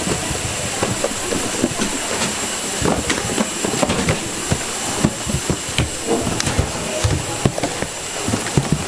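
Young coconuts being packed into cardboard cartons: irregular knocks and thuds as the fruit is set down in the boxes and the cardboard shifts, over a steady hiss.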